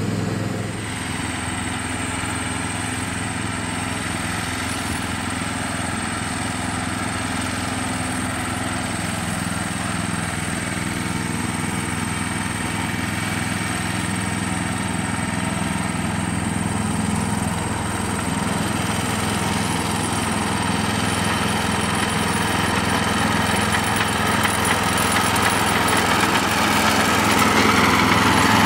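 Small engine of a ride-on miniature railway locomotive running steadily as it hauls a long train of flatcars, growing louder as it draws near.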